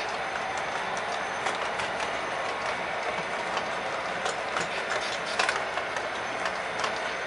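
O scale model freight cars rolling past on track: a steady rolling rattle with irregular clicks as the wheels cross rail joints.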